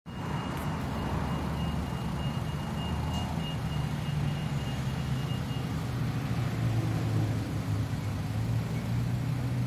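A vehicle engine running steadily with a low hum. A faint high steady tone sounds through the first half and then stops.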